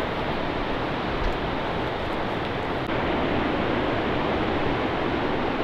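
A steady, even rushing noise with no breaks or changes.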